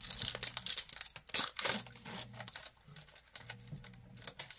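Panini Prizm Draft Picks trading-card pack being torn open and handled: irregular crinkles, crackles and clicks of the wrapper and cards, densest in the first couple of seconds, then sparser.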